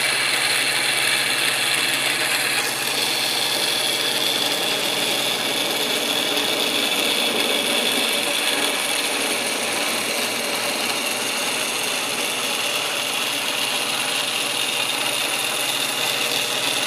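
Milling machine running a Volstro rotary milling head attachment, its 1/2-inch cutter orbiting and cutting into the workpiece as it is fed inward: a steady machine run with cutting noise.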